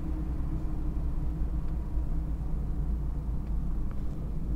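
Steady low road and engine rumble inside the cabin of a moving kei van.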